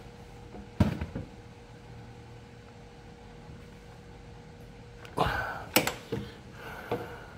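A hand tool knocking against the metal engine casing of a scooter: one sharp knock about a second in, then a quick run of several clanks and rattles between about five and seven seconds in as the tool is pulled away.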